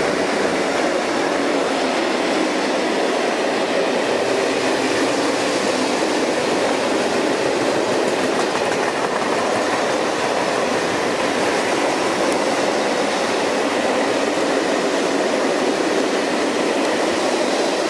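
Freight train of open coal wagons rolling past at close range: a loud, steady noise of steel wheels running on the rails.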